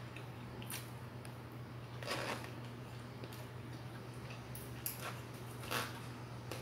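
Eating sounds: a metal fork and spoon scraping and tapping in a plastic food container, with chewing. There are four short scrapes over a steady low hum.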